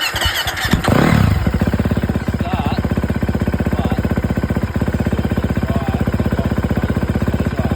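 2011 KTM 350 SX-F's single-cylinder four-stroke engine running after start-up, revving briefly about a second in, then idling with an even, rapid firing beat. It will not hold its idle, a fuel delivery fault that the owner puts down to the fuel pump.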